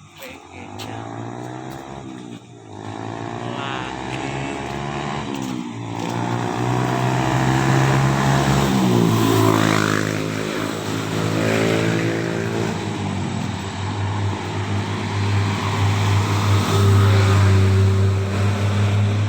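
A vehicle engine running and getting louder, its pitch rising as it revs about nine seconds in, then running steadily.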